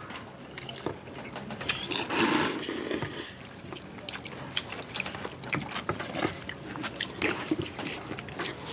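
Several men noisily slurping and chewing jjajangmyeon (black-bean noodles), with short clicks of chopsticks against bowls throughout and a long slurp about two seconds in.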